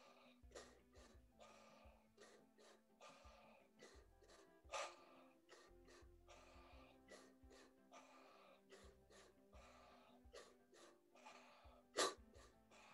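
Faint, rapid, forceful breathing in and out through the mouth, the quick deep breaths of a power-breathing round, with a louder breath about five seconds in and again near the end.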